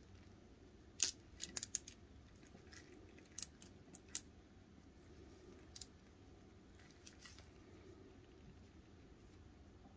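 Small hard plastic puzzle pieces clicking against each other as a vintage keychain puzzle is worked apart by hand: a quick run of sharp clicks about a second in, then a few scattered single clicks.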